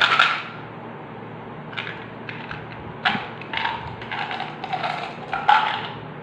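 A plastic Mentos gum bottle grabbed from a basket of wrapped candies, with a loud rustle of wrappers at the start. Its flip-top lid clicks open, and hard white gum pellets tip out into a palm in a run of small clicking rattles over the second half.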